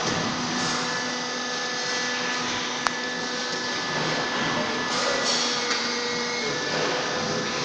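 Machinery of a compressed sawdust pallet block production line running: a steady hiss with several steady humming tones, and one sharp click about three seconds in.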